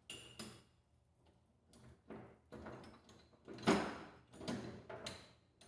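Metal tools and engine parts being handled during a teardown: irregular clunks and scrapes, with the loudest clatter a little past halfway.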